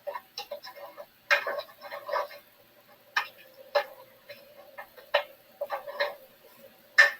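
Cooking sounds from a pan of chili sauce on the stove: irregular light clicks and taps, with a louder cluster near the end.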